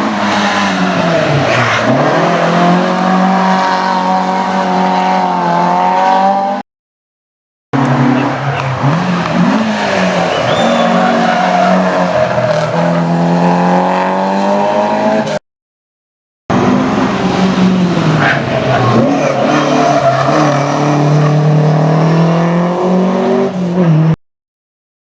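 Rally cars driven hard on a stage, engines revving up and dropping back through gear changes and braking as they pass. The sound comes in three stretches, broken by about a second of silence twice.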